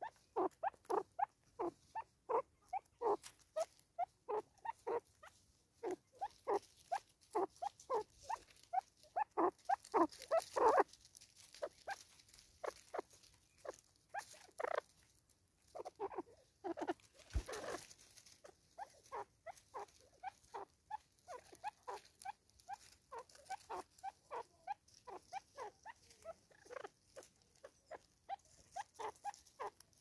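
Southern red-billed hornbill calling: a long run of rapid clucks, about three to four a second, growing louder over the first ten seconds, then after a short pause going on more quietly. A brief rustle comes about halfway through.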